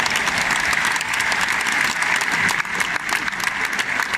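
A large bullring crowd applauding a matador's passes with the muleta: dense, steady clapping that neither swells nor breaks.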